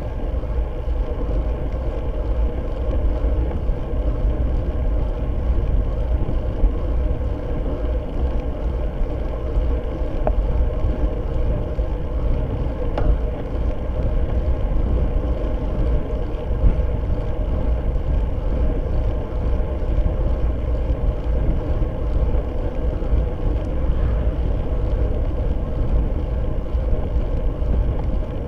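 Steady wind rumble on a bicycle-mounted camera's microphone while riding at speed, mixed with tyre noise on the concrete road.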